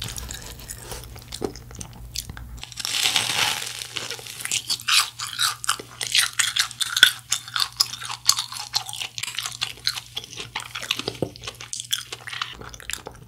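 Close-miked biting and chewing of a fried cheese ball, its crisp crust crunching between the teeth. A louder crunch comes about three seconds in, followed by many quick crunchy chews that fade near the end.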